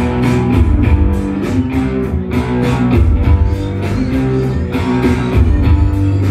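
Live rock band playing an instrumental passage: electric guitar and electric bass over a steady drum beat.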